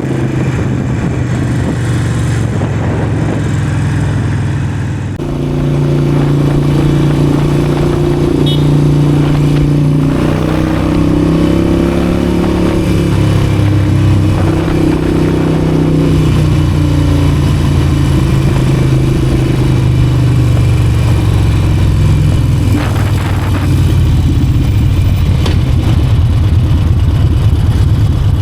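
Harley-Davidson Forty-Eight's air-cooled V-twin engine running while riding, heard through a microphone inside the helmet. The engine note rises and falls with the throttle, with a brief dip in level about five seconds in.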